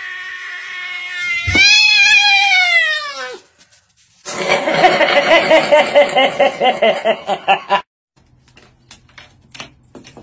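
Cat yowling: a long held yowl, then a loud yowl that rises and falls, then a fast wavering yowl of about three seconds that cuts off suddenly. A few faint clicks follow near the end.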